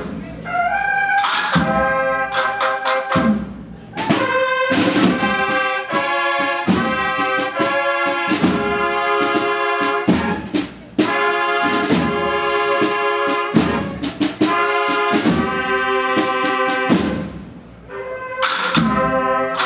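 A cornetas y tambores band playing a Holy Week procession march: bugles sounding sustained chords in harmony over drum strokes, with brief breaks between phrases.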